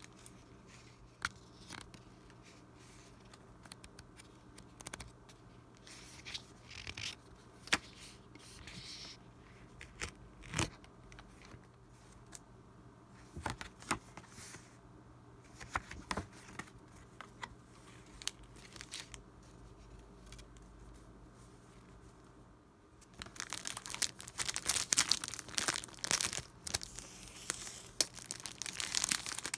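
Stiff paper journal cards handled and flipped, giving scattered soft clicks and rustles. About 23 seconds in, a louder run of crinkling and tearing as the cellophane wrap of a paper pad is slit open with a blade.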